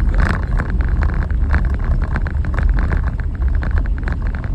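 Jeep driving on a rough trail: a steady low rumble with a fast, constant clatter of rattles and crunches.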